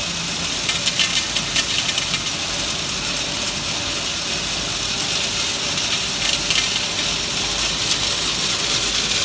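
MWCA Mini Wrap candy wrapping machine running steadily, with a dense, continuous rattle and clicking of hard candies being fed around its rotary disc feeder bowl and the wrapping mechanism cycling.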